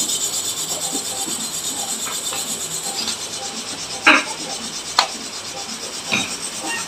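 A motorcycle's steel front fork tube and steering T being shifted and settled by hand in the jig of a straightening press: rubbing and scraping of metal on metal, with three sharp knocks, the loudest about four seconds in. A steady high hiss runs underneath.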